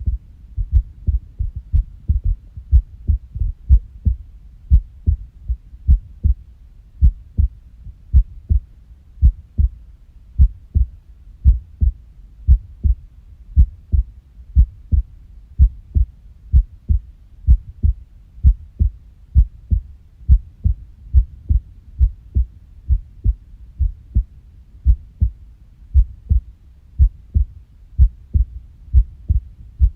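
Human heartbeat, close up: low lub-dub thumps, many in close pairs, with uneven gaps between some beats. This is the irregular rhythm of an arrhythmia.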